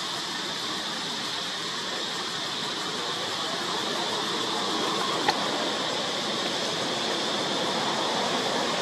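Steady outdoor background hiss, even across high and low pitches, with one sharp click about five seconds in.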